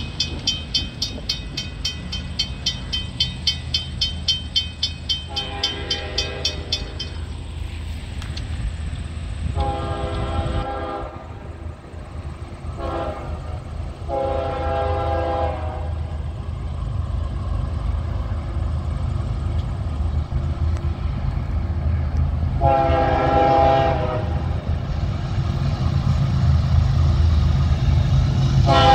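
Railroad crossing bell ringing rapidly as the crossing gate arm lifts, fading out after several seconds. A diesel freight locomotive then sounds its chord horn in a long, long, short, long crossing signal, blows once more later and again at the very end, over the low rumble of its engines growing louder as the train approaches.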